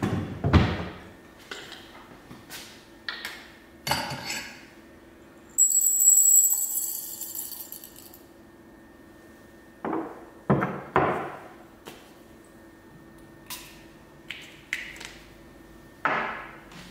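Glass and metal coffee gear handled in an echoing kitchen: a series of separate knocks and clinks, with a drawer shut near the start. The loudest sound is a glass jar's metal lid being twisted off, a scraping ring that lasts about two seconds.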